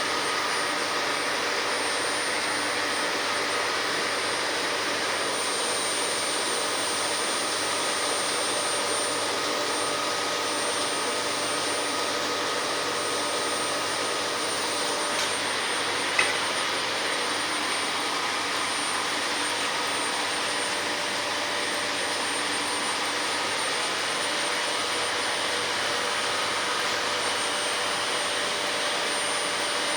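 Lathe running steadily, a constant mechanical noise with a thin high whine throughout and a single short click about halfway through.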